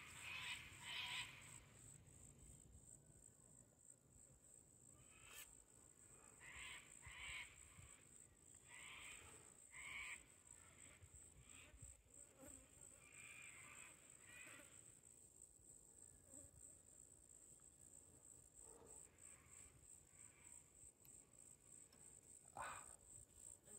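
Near silence, with a faint, steady, high-pitched insect chirring behind it and a few soft, scattered sounds.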